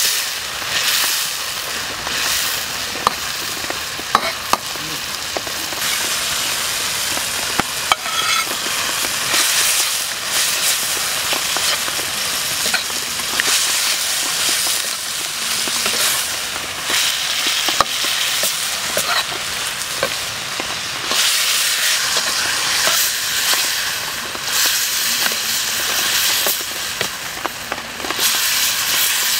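Beef and bell peppers stir-frying in a steel wok: a steady sizzle, with a metal ladle scraping and now and then clacking against the pan as it is stirred.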